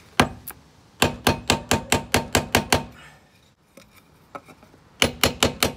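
Hammer tapping a tapered wooden block to drive a new gimbal bearing into its bore in a Volvo Penta SX bell housing. Two single taps, then a quick run of about ten taps at about five a second, a pause, and a shorter run of about six taps near the end, each with a short ring.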